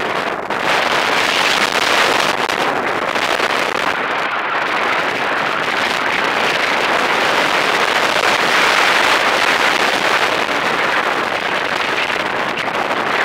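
Wind noise from the airflow over the microphone of a paraglider in flight: a steady, loud rush with no tones in it.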